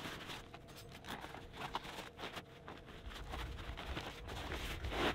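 Faint rustling and light clicks of a collapsible fabric solar oven (Sunflair) being folded flat and handled, with a low rumble from about three seconds in.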